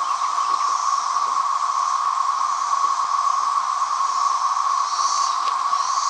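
Dense chorus of periodical cicadas (Magicicada): many males calling together in a steady, unbroken drone, the constant roar of a mass emergence.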